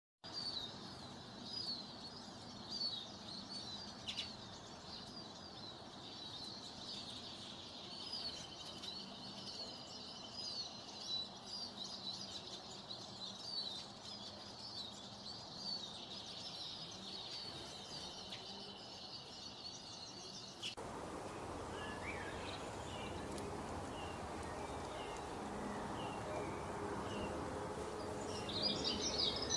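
Small birds chirping: many quick, high chirps overlapping. About 21 s in, the sound cuts abruptly to a noisier background with scattered chirps that grow louder near the end.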